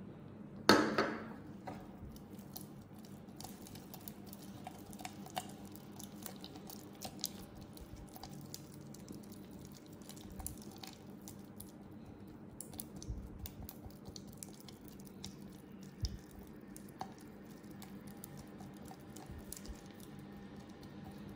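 Silicone spatula mashing and stirring shea butter with sweet almond oil in a beaker: soft squishing with many small irregular clicks of the spatula against the beaker. One brief louder noise about a second in.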